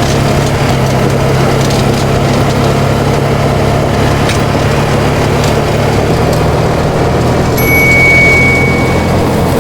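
Polaris RZR 570 side-by-side's single-cylinder engine running steadily while driving a bush track, its pitch dropping about six seconds in. Scattered cracks and knocks sound over it, and a high steady tone sounds for about a second near the end.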